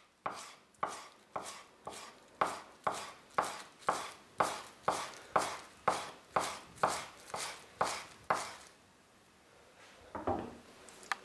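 Kitchen knife chopping chives finely on a wooden cutting board, about two sharp knocks a second. The chopping stops about eight and a half seconds in, and a few softer knocks follow near the end.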